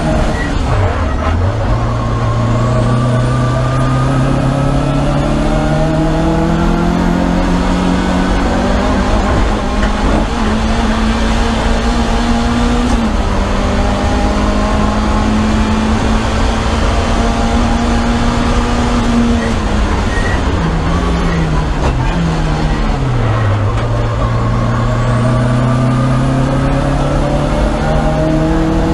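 Lancia Delta HF Integrale's turbocharged four-cylinder engine, heard from inside the race car's cockpit on a flying lap. Its revs drop sharply at the start, then climb slowly and hold. They step down several times around twenty seconds in as it downshifts for a corner, then climb again near the end. Road and wind noise run underneath throughout.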